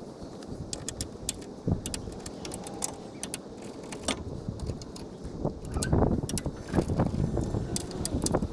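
Hand tools working the bash bar's mounting bolts: a run of sharp metallic clicks and clinks as the bolts are ratcheted and torqued, over a low steady rumble. The clicking grows louder and busier in the last few seconds.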